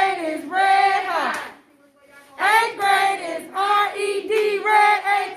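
A group of voices chanting a school spirit cheer, syllable by syllable, with a short break about two seconds in.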